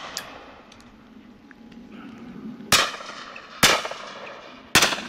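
Three shotgun shots fired at driven game birds, the first about two and a half seconds in and the others about a second apart, each sharp report followed by a short echoing tail.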